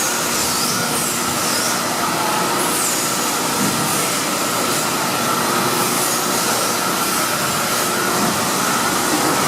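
A 1985 Cincinnati 175FM-10 CNC hydraulic press brake running, with a steady mechanical hum and hiss and a constant whine. Short high squeals that fall in pitch come and go every second or so.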